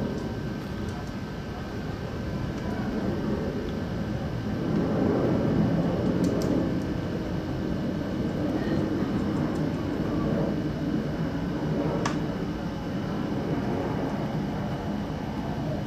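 Distant jet airliner on its landing approach, a Boeing 787-10 with Rolls-Royce Trent 1000 engines: low engine noise that swells about five seconds in and then holds steady.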